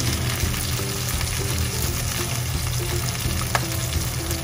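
Chicken thighs sizzling steadily as they pan-fry in a little oil in a nonstick frying pan, near the end of cooking with the skin already crisp. There are a few light clicks of metal tongs against the pan.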